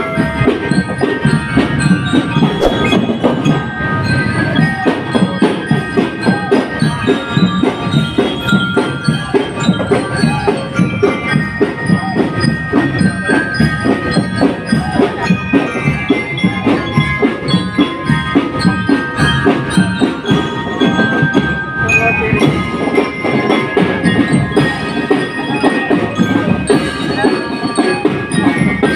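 Drum and lyre corps playing on the march: bell lyres ringing out a melody over a steady marching beat on drums.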